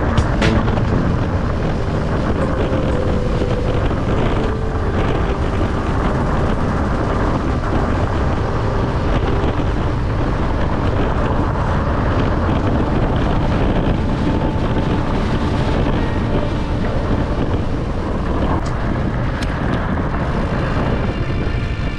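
Fat bike riding fast on a dirt forest track: a steady rumble from the wide tyres rolling over the ground, with wind buffeting the microphone.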